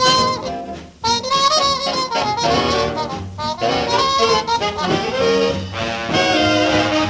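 1941 swing big-band recording, the brass-led ensemble playing sustained chords. The band drops out briefly about a second in, then comes back in full.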